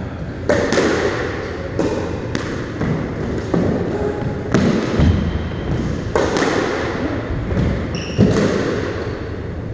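Squash rally: the ball cracking off rackets and the front and side walls about once or twice a second, each hit echoing around the court, with footsteps on the wooden floor and a couple of short high shoe squeaks about eight seconds in.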